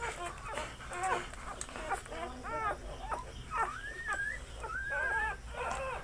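Two-day-old Labrador puppies squeaking and whining while nursing at their mother's teats: a rapid string of short, high calls, with a couple of longer rising whines about four to five seconds in.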